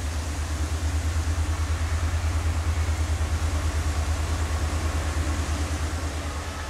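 Diesel locomotive of a departing passenger train: a deep, rapid engine throb of about ten pulses a second, easing slightly as the train pulls away.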